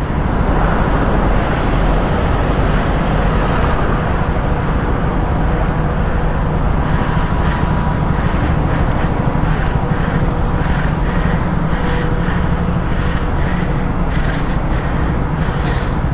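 Motorcycle engine running steadily, the bike pulling away and rolling slowly, with wind buffeting and road noise on a helmet-mounted microphone.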